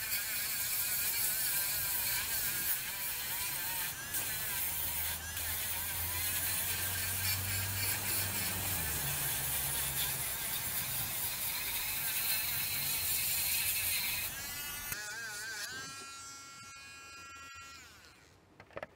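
Dremel rotary tool spinning a small sanding disc on a mandrel, sanding the rim of a turned wooden bowl: a steady small-motor whine with the hiss of abrasive on wood. About three-quarters of the way through it fades away.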